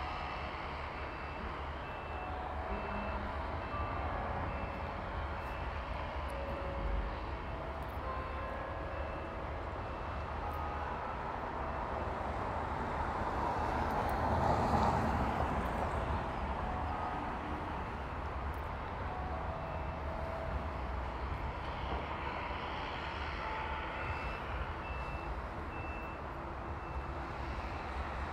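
Street traffic running steadily, with one vehicle passing louder about halfway through. A faint high beep repeats about twice a second in spells near the start and again near the end.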